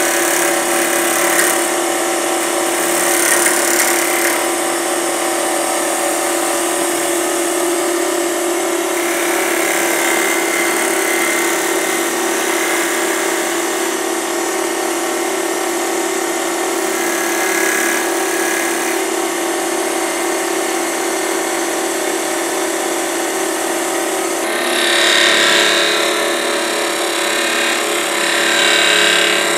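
Grizzly G0733 wood lathe running steadily at about 2,100 rpm with a constant whine, while a hand-held turning chisel scrapes the spinning cedar sphere in spells that come and go, loudest twice near the end.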